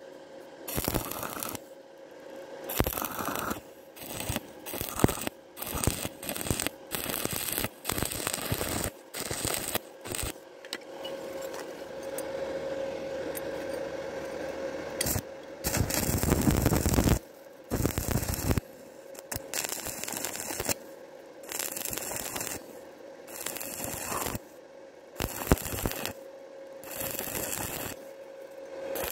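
Stick (arc) welding on steel tube: the electrode's arc crackles and sizzles in many short bursts, repeatedly struck and broken, with a longer steady run of crackle through the middle.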